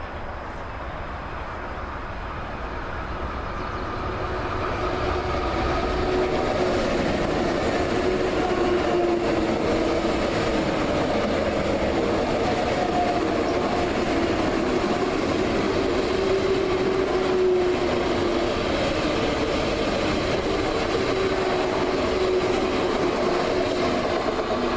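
A train passing, growing louder over the first five or six seconds and then running steadily past, the noise of its wheels on the rails carrying a steady hum.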